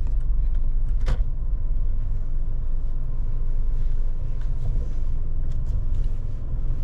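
Steady low rumble of a car on the move, with a brief click about a second in.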